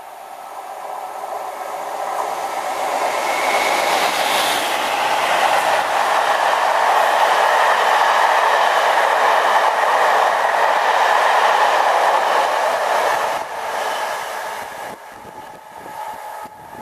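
Diesel-hauled passenger train, Class 57 locomotive 57307 and Class 47 locomotive 47841 with a rake of coaches, passing through a station. The noise builds as the locomotives approach and go by about four seconds in, then the coaches keep up a steady rumble and clatter of wheels on the rails, dropping away after about thirteen seconds as the last coach passes.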